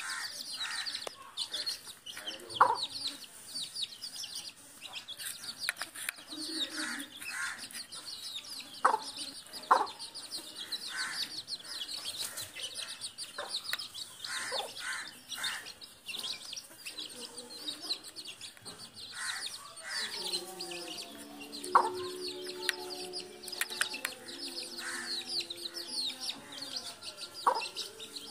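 A hen clucking among her chicks. The chicks peep constantly in thin, high cheeps, and a few short, sharp calls stand out above them. Faint taps come from beaks pecking at feed on a tiled floor.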